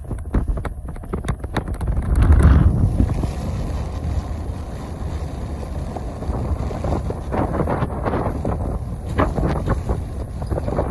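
Wind buffeting the microphone: a loud, steady low rumble with crackles throughout, loudest about two seconds in.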